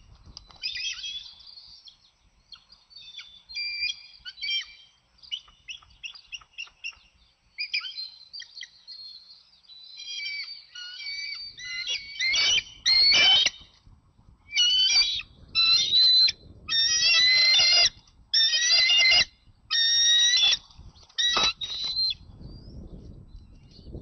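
Bald eagles calling at the nest: high, chittering calls with several stacked pitches, soft and scattered at first, then a loud run of repeated calls, each about half a second to a second long, from about halfway through.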